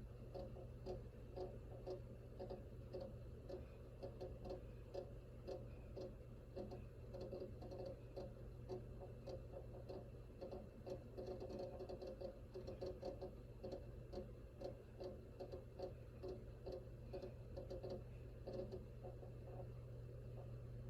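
Rapid, irregular clicking from the replacement 8TB hard disk in a Toshiba D-M210 Time Shift Machine recorder, over a steady low hum. It is an abnormal noise the drive makes even though recording works normally.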